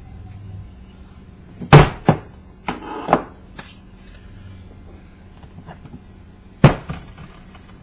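Sharp knocks and strikes on a ceiling fan's metal housing while its rusted-on bottom plate is being worked at: two hard hits close together, a few lighter knocks, and another hard hit near the end.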